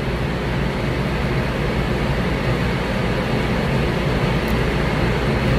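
Steady rushing background noise with a low hum underneath, even throughout, with no distinct events.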